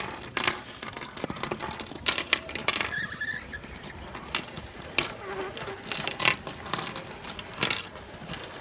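A spinning fidget spinner pushed along rows of plastic LEGO minifigures, its blades striking them in a rapid, irregular run of plastic clicks and clatter as the figures are knocked over.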